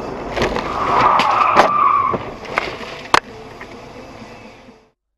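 Car collision heard from inside a car through its dashcam: tyres squeal under hard braking for about a second and a half, with several sharp knocks of contact. The loudest knock comes about three seconds in, and the sound cuts off near the end.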